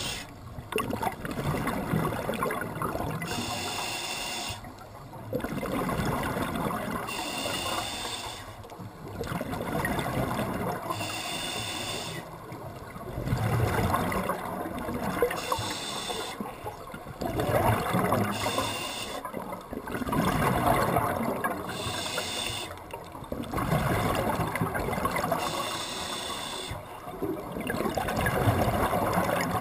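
Scuba diver breathing through a regulator underwater, at about one breath every four seconds. Each breath is a short hiss of inhaling through the demand valve, followed by a louder gush of exhaled bubbles.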